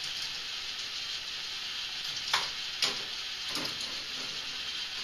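Micro K'nex motorized ball machine running: a steady whirring, rolling noise of the motor-driven lift and plastic balls on plastic track, with three sharp clacks of balls striking the track, a little past two seconds in, near three seconds and about three and a half seconds in.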